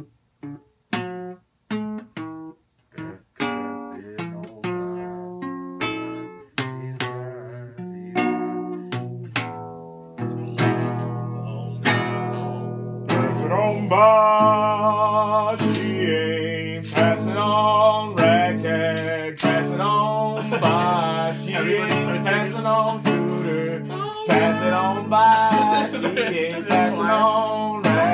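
Classical guitar played with separate plucked notes, turning to fuller continuous playing about ten seconds in. Wordless male singing with a wavering pitch joins a few seconds later.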